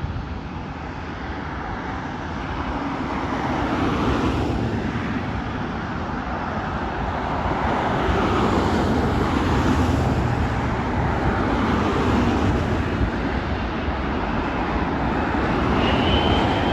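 Airbus A380-861's four Engine Alliance GP7200 turbofans on landing approach, a rumbling jet noise growing steadily louder, with a high whine coming in near the end.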